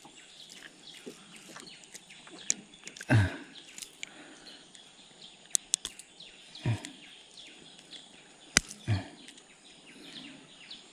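Birds chirping over a steady outdoor background hiss, with a few sharp clicks and three short thuds scattered through.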